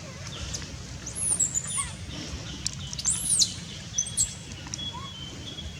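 Shrill, arching animal calls, loudest twice, about a second and about three seconds in, with a few shorter squeaks after, over faint chirping and a steady high whine.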